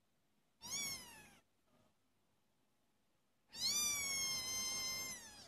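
A 29-day-old kitten meowing twice: a short call that falls in pitch, then near the end a long, high, drawn-out meow that drops away at its close.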